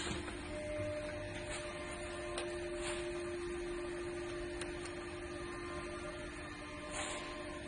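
Steady machine hum holding one constant pitch, with a few light clicks about two and a half seconds, three seconds and seven seconds in.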